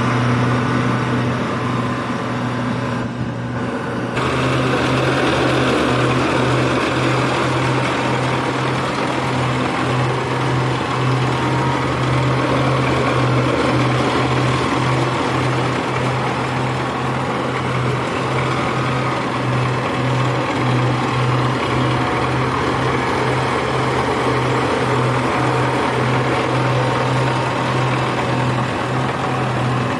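Engine of a rice-harvesting machine running steadily with a strong hum and mechanical clatter. It is weaker for the first few seconds and comes up fully about four seconds in.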